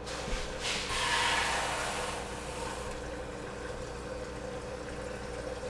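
Kitchen tap water running into a measuring cup for about two seconds, the hiss rising in pitch as the cup fills, over a steady low hum.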